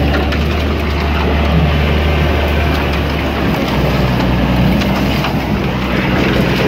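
Mercedes-Benz Unimog truck engine running steadily as the truck drives along a wet, muddy track, with the engine note shifting about halfway through.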